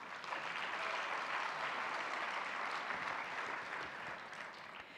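Audience applauding, holding steady and then dying away over the last second or so.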